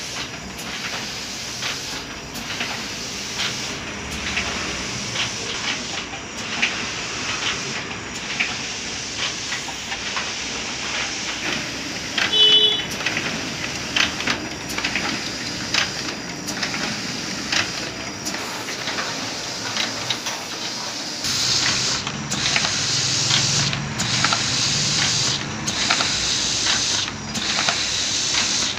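Offset printing press running with a steady mechanical hiss and clatter and frequent small clicks as its rollers turn and sheets feed through. It grows louder and brighter about two-thirds of the way in.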